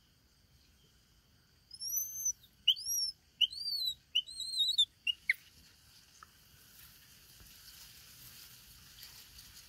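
Baby macaque giving a run of about six high, whistle-like chirps, each rising and falling in pitch, over about three seconds, then falling quiet.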